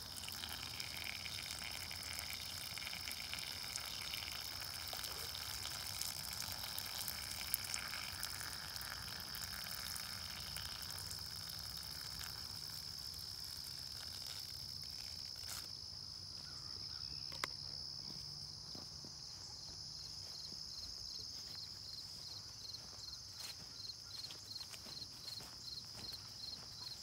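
Steady, high-pitched insect chorus of summer insects such as crickets or cicadas. Near the end a rhythmic chirping joins, about three chirps a second.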